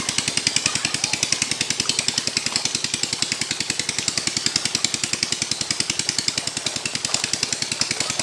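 A small engine running steadily, with an even beat of about eight pulses a second.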